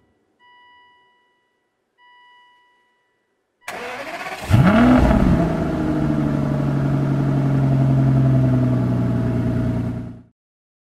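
Aston Martin DB9 V12 starting: two electronic chimes sound, then the starter cranks briefly and the engine catches about four and a half seconds in with a short rev that rises and falls, settling into a steady idle. The sound cuts off abruptly about a second before the end.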